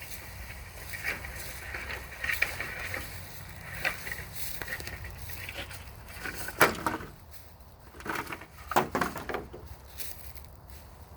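Irregular crunching and cracking of sticks and brush being handled and stepped on, with two louder cracks past the middle.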